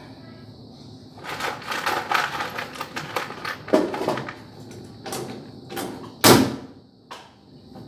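Irregular knocks, taps and clatter from handling and fitting ceiling boards, with a single loud knock about six seconds in.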